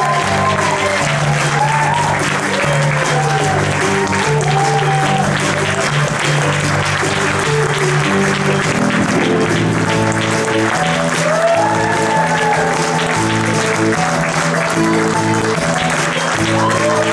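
Audience applause over instrumental music with a moving bass line, at a theatre curtain call.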